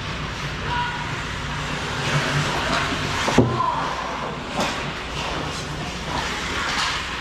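Ice hockey play in an echoing indoor rink: skate blades scraping and swishing on the ice and sticks on the ice over a steady low hum, with one sharp knock of a puck or stick impact about three and a half seconds in.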